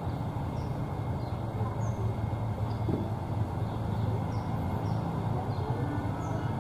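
Steady low rumble of a car's engine and running gear heard from inside the cabin, with a few faint high chirps above it.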